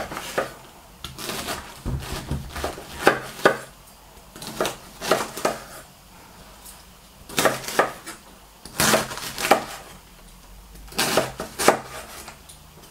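Kitchen knife cutting white cabbage on a wooden cutting board: a series of cuts with the blade striking the board, in short runs with pauses between.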